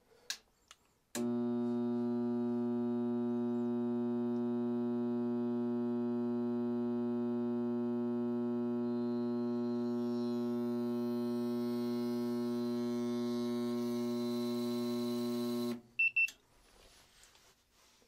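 Draft inducer motor of a Goodman high-efficiency furnace buzzing steadily while powered but not spinning. It starts about a second in and cuts off abruptly with a couple of clicks near the end. The motor is stalled, a sign the owner takes for a fused coil, a bad bearing or something else stopping it from turning.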